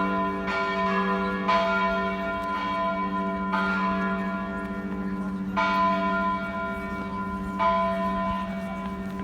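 Church bells of St. Anthony of Padua church in Prague ringing, with a fresh strike about every two seconds over a steady low hum. The ringing grows quieter toward the end.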